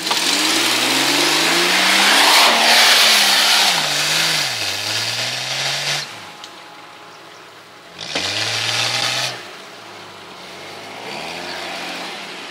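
Jeep Cherokee engine revving hard under load on a sandy, rutted off-road track, its pitch rising and falling as the tyres spin and throw sand. The loudest push comes in the first few seconds. The revs then drop back, and there is another short burst about eight seconds in.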